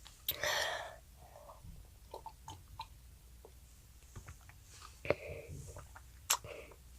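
A child chewing food close to the microphone: a short louder noisy mouthful near the start, then quieter scattered mouth clicks and smacks, with a sharper click about five seconds in and another about six seconds in.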